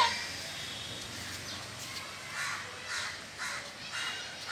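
A crow cawing four times in a row, one harsh call about every half second. A short, sharp sound at the very start is the loudest thing heard.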